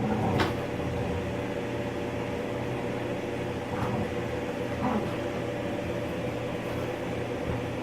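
A steady mechanical hum, with a short sharp click about half a second in and a couple of faint brief sounds around four and five seconds in.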